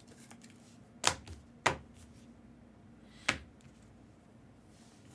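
Three sharp clicks from trading cards and their packaging being handled: two close together about a second in, a third about three seconds in.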